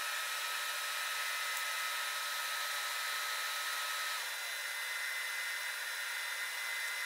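A DIY metal powder-bed laser 3D printer running a print attempt: a steady airy whir with a thin whine that drops away about four seconds in as a higher whine takes over.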